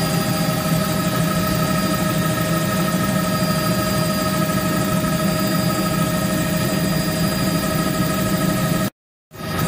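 Helicopter engine and rotor noise heard inside the cabin in flight: a steady drone with constant whining tones. It cuts out for a moment near the end, then resumes.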